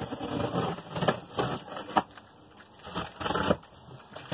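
Cardboard box being handled and torn open: crackling, scraping cardboard in stretches, with a sharp snap about two seconds in.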